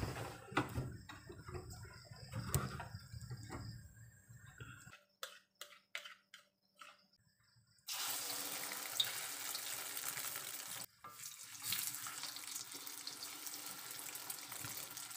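Beaten egg poured into hot oil in a wok, starting a steady sizzle about halfway through that carries on as it is stirred with a wooden spatula. Before that come a few knocks and clatters of handling.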